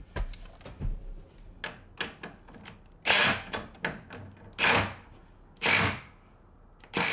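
Cordless Milwaukee Fuel impact driver running a nut down onto a bolt through a wooden deck-beam post, in four short bursts of about half a second each, beginning about three seconds in. Before that, a few light clicks and taps as the socket is fitted onto the nut.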